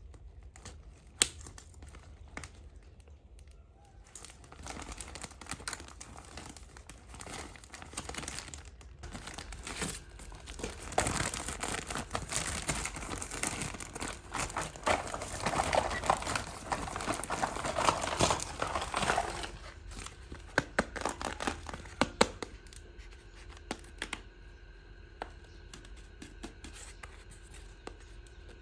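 Toy packaging being crinkled and torn open by hand, with scattered small clicks; the crinkling is densest and loudest from about ten to twenty seconds in.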